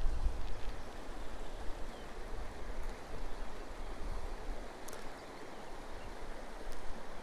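Shallow mountain river flowing over stones: a steady rush of water, with a low rumble of wind on the microphone near the start.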